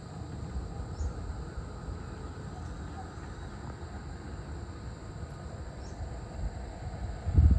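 Outdoor evening ambience: a steady high-pitched insect drone, like crickets, over an uneven low rumble, with a louder low thump near the end.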